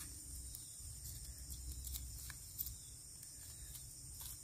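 Faint steady high-pitched chorus of insects, with a low rumble underneath and a couple of soft clicks.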